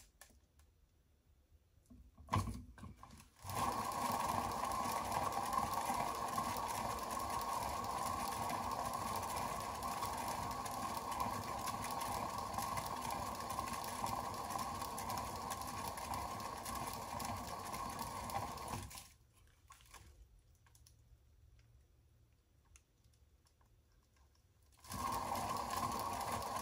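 Small electric motor of a paint spinner running steadily as a poured painting spins on it. It stops about 19 seconds in and starts again near the end, after a couple of light knocks early on.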